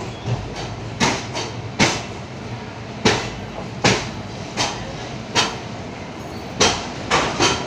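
Train wheels clacking over rail joints and points, sharp clacks about once a second, some in quick pairs, over a steady rumble, heard from inside a slowly moving passenger coach.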